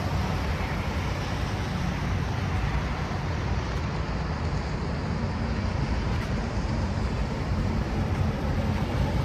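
Heavy-truck diesel engine of a 2025 Kenworth W900 (605 hp) idling, a steady low rumble.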